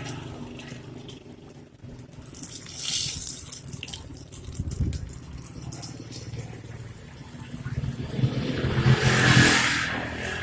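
Batter-coated taro slices stuffed with pork sizzling in hot oil in a frying pan. The sizzling swells about three seconds in and more strongly near the end.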